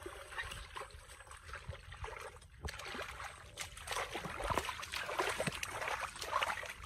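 Hands digging and squelching in wet mud and shallow muddy water, with irregular wet slaps and sloshes that get louder about three seconds in.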